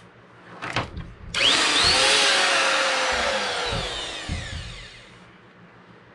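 Hammerhead 10-amp variable-speed plunge router switched on briefly: the motor whines up to speed, runs for about two seconds, then is switched off and winds down, its pitch falling away. A short handling knock comes just before it starts.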